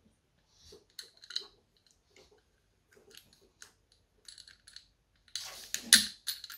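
Small metallic clicks and ticks of Marelli distributor parts being handled and fitted by hand as the points insulator block is worked through its hole. A louder clatter with a sharp knock comes about a second before the end.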